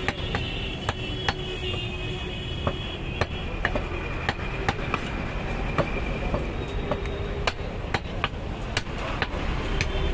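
Heavy meat cleaver chopping goat meat on a wooden log chopping block: sharp, irregular knocks, about one or two a second, over steady background noise.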